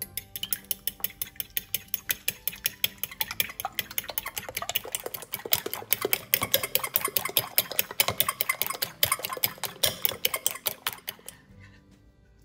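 Metal fork beating raw eggs in a ceramic bowl: quick, rhythmic clinks of the tines against the bowl, several a second, stopping about eleven seconds in.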